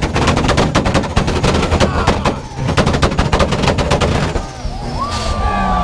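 Car engine held on a two-step launch-control rev limiter, firing a rapid string of loud exhaust pops and bangs in two bursts with a brief break between them.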